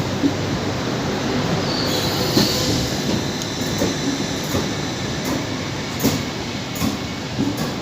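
Train moving slowly along the platform, running with a steady rumble. There is a brief high wheel squeal about two seconds in and a few short knocks.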